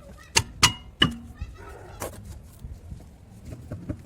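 A few sharp metallic knocks and clinks, some with a short ring: three close together in the first second, another about two seconds in, from tools and parts being handled during work on a car's disc brake.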